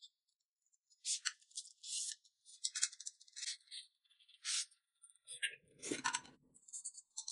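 Soft noodle-eating sounds: short slurps and chewing, each lasting well under a second, a few times a second at first and then sparser.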